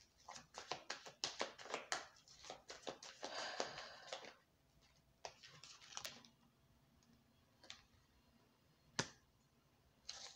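A tarot deck being shuffled by hand: rapid clicking and flicking of cards for about four seconds, then a few single card flicks with pauses between them.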